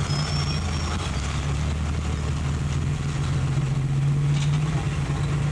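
A steady low hum, like an engine running, under an even hiss.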